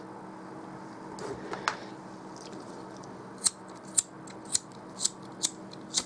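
Small hand cutters snipping at the bench: a few light clicks, then six crisp snips about two a second, as wire or heat-shrink tubing is trimmed for soldering.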